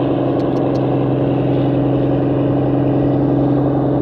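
Express passenger boat's diesel engines running steadily at cruising speed: a constant deep drone over the rush of water along the hull. A few faint clicks come just under a second in.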